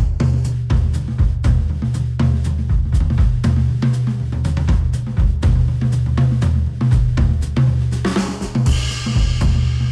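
Instrumental music with a drum kit and a heavy bass line, played through headphones and picked up by measurement microphones. A bright wash of high sound comes in about eight seconds in.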